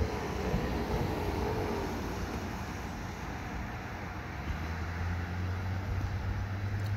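Motor vehicle engines running at a roadside traffic stop, a low steady hum that grows stronger about four and a half seconds in as the stopped pickup pulls away.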